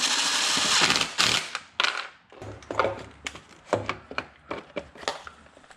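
Hands working on the engine's intake manifold: a loud rustle for about a second and a half, then a run of irregular small clicks and knocks of parts being handled and seated.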